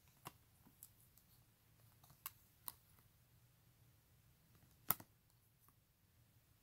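Photo cards being shuffled by hand: a few faint, scattered clicks and taps as the card edges knock together, the sharpest about five seconds in.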